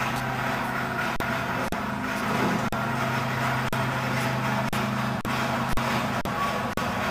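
A pipe-rail crop chopper trolley for pepper plants running, with a steady motor hum and sharp clicks or knocks about every half second.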